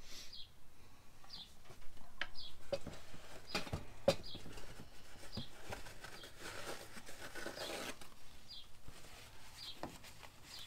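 A bird chirps a short, falling note over and over, about once every second or so. Under it are small clicks and knocks of hands working at a cabinet, the sharpest about four seconds in, and a short stretch of rubbing.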